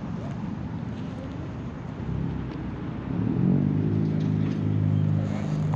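An engine running rough and low, then picking up speed about three seconds in and settling into a steady hum.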